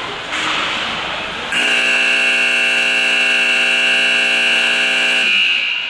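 Ice rink game horn sounding one long steady blast, starting about a second and a half in and lasting about four seconds, signalling a stoppage such as the end of a period.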